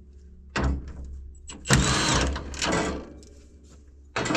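Cordless power drill spinning up and down in short bursts of about a second, four times, each with a rising and falling whine, as it works the fasteners on a tractor's fan shroud.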